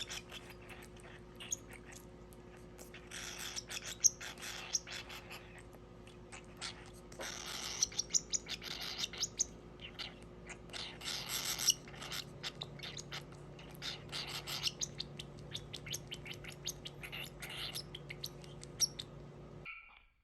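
Baby cockatiel's food-begging calls: repeated harsh, hissy chirping in bursts of a second or two, with small clicks in between, over a steady low hum. It cuts off suddenly near the end.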